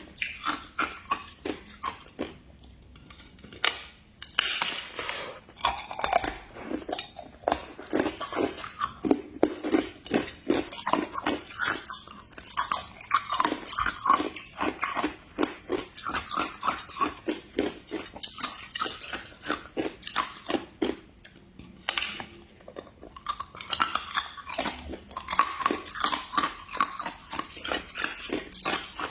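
A person biting and chewing hard ice: a fast, steady run of sharp crunches, with a short pause a few seconds in and another about three quarters of the way through.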